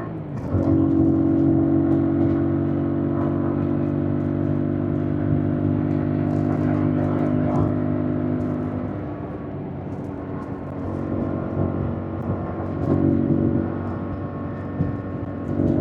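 2025 Yamaha MT-07's parallel-twin engine running under way at a steady pitch. It eases off about nine seconds in, then picks up again in spells.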